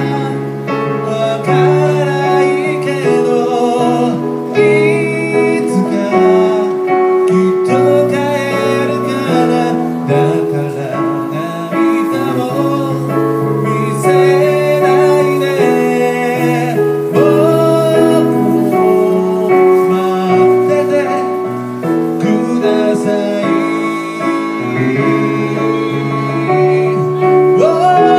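A song performed live on an electronic keyboard, held chords under a singer's voice carrying the melody, amplified through PA speakers.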